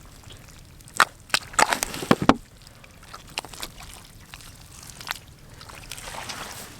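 Shallow water sloshing and splashing, with a quick run of sharp splashes between about one and two and a half seconds in, then quieter sloshing.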